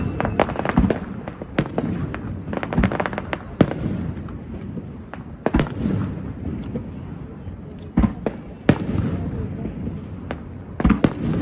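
Aerial fireworks display: shells bursting in a rapid series of sharp bangs over a continuous low rumble. The bangs are thickest in a crackling cluster a few seconds in, with single louder bursts about halfway through and near the end.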